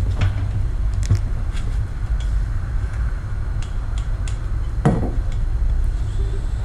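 Scattered light clinks and knocks, the loudest about five seconds in, over a steady low rumble.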